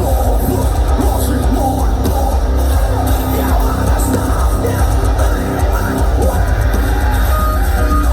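Live metalcore band playing loud and dense, with heavy bass and drums, distorted guitars and yelled vocals.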